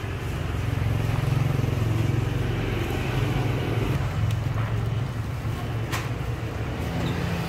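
A running engine's steady low hum, with two faint clicks partway through.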